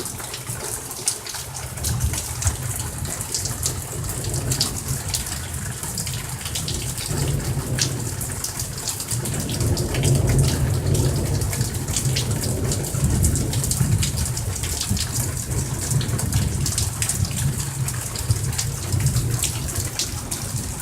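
Heavy rain falling steadily, with sharp ticks of drops striking nearby surfaces, under a low rolling rumble of thunder that swells about halfway through and again a few seconds later.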